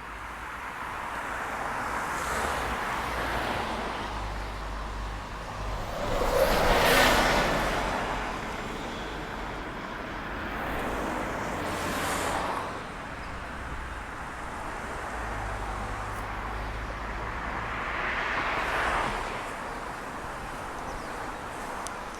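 Road traffic: four vehicles pass one after another, each rising and fading, the loudest about seven seconds in, over a steady low rumble.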